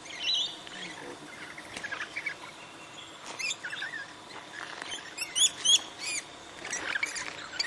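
A flock of wild parrots, rosellas among them, giving scattered short, high chirps, with a quick run of calls a little past halfway.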